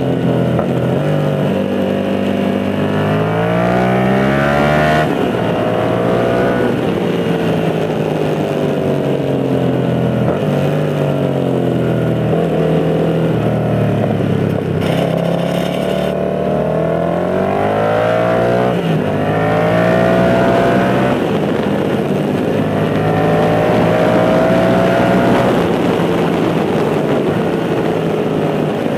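Yamaha MT-07 parallel-twin engine with an aftermarket MIVV GP carbon exhaust, heard on board while riding. The pitch climbs and drops several times as the bike accelerates, changes gear and rolls off the throttle for corners, then holds steadier near the end.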